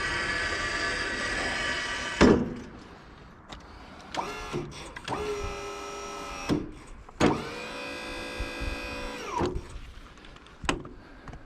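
Homemade sawmill running steadily, then cutting off with a loud thump about two seconds in. After that, a small electric motor whirs twice, spinning up and winding down each time, the second run longer, with a few knocks in between.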